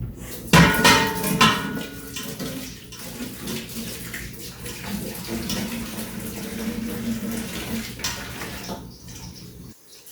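A large metal turkey-fryer pot clanks and rings about half a second in, then tap water runs steadily into it as it is washed out; the flow cuts off abruptly just before the end.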